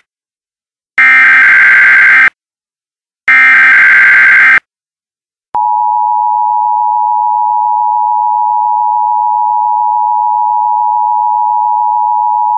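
Emergency Alert System SAME header: two bursts of digital data tones, each just over a second long, with short gaps between them. About five and a half seconds in, the EAS attention signal starts, a steady two-tone (853 and 960 Hz) alarm tone that holds without a break.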